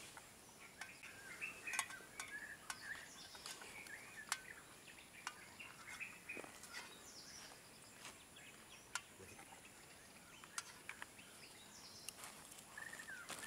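Faint birds chirping and calling on and off, with scattered light clicks and taps.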